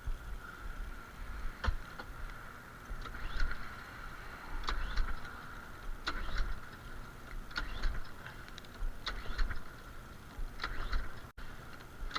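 Briggs & Stratton lawn-mower engine being pull-started again and again, a surge of cranking about every second and a half, without catching. The owner puts the no-start down to a carburetor that needs servicing.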